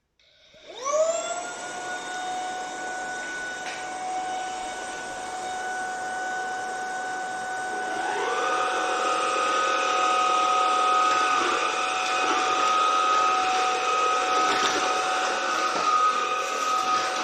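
Vax Edge cordless upright vacuum cleaner switched on, its motor whine rising quickly to a steady pitch over a rushing hiss. About eight seconds in a second, lower-pitched tone joins and it runs louder.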